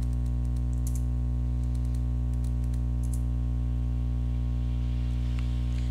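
A few scattered, faint computer keyboard key presses over a steady low electrical hum.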